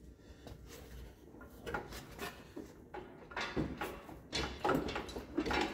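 Irregular metal knocks and clunks as a garden tractor engine hanging from a chain is shifted and rocked by hand. The engine is snagged and will not lift clear, held by the drive shaft.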